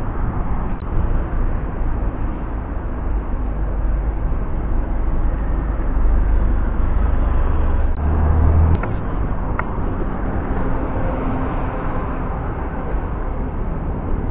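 Town-centre road traffic heard from the kerb: city buses driving past with a low, steady engine and road rumble. The sound changes abruptly a little after halfway, where one passing shot gives way to another.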